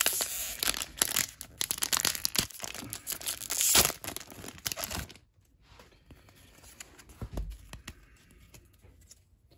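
A foil Pokémon Miracle Twin booster pack is torn open and crinkled by hand: a dense crackle of tearing foil for about five seconds, loudest near the end of the tear, then a fainter rustle as the cards are slid out.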